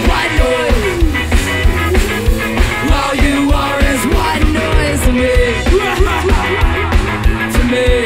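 Live ska-punk band playing a passage without lyrics: electric guitar, bass and a steady drum beat, with a melodic line sliding up and down over them.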